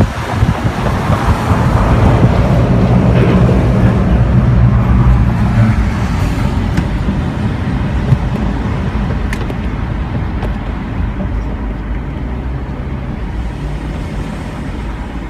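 Steady road noise of a car driving at speed, engine and tyre rumble heard from inside the car. It is louder for the first few seconds, then eases off.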